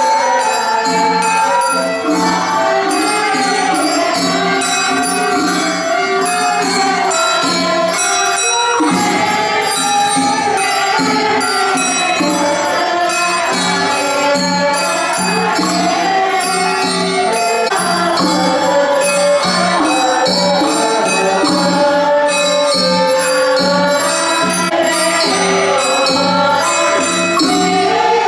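Background music with a melody and a steady beat of high, light percussion.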